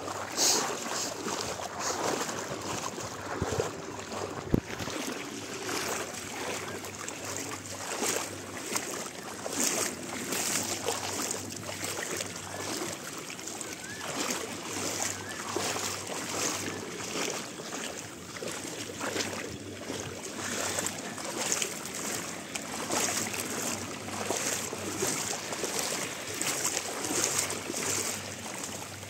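Shallow sea water lapping and sloshing close to the microphone, an uneven run of small splashes, with a single sharp knock about four and a half seconds in.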